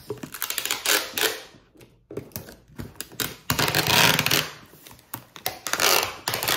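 Sticky tape pulled off a handheld tape dispenser and pressed onto a wrapped gift box, in three pulls, each a rapid rattle.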